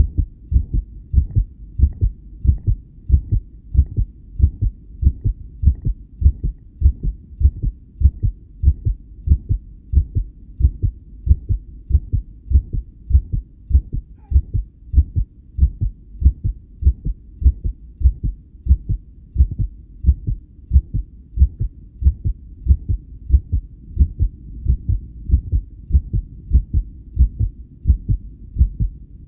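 A person's heartbeat picked up through a homemade electronic stethoscope: a steady run of low, dull lub-dub thumps, several a second, strong and mostly even.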